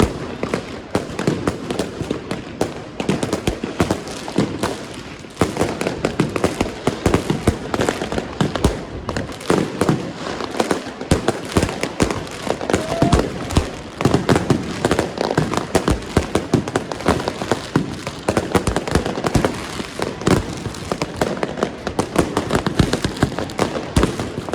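Many fireworks and firecrackers going off at once: a dense, unbroken run of overlapping bangs and crackles, some bangs much louder than others.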